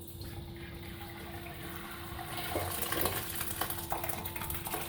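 Boiled wheat and its cooking water being poured into a pot: a splashing pour with small knocks, louder from a little before halfway through.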